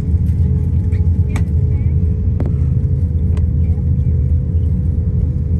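Cabin noise inside an Airbus A350-900 taxiing: a steady low rumble of the idling engines and rolling airframe, with a constant hum and a few faint clicks.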